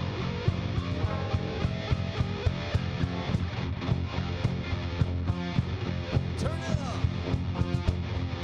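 Rock band playing live: distorted electric guitar, bass and drums with a steady beat.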